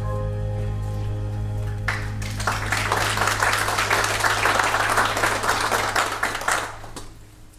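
The last held chord of a gospel song's accompaniment, then a congregation applauding from about two seconds in, for roughly five seconds, dying away near the end.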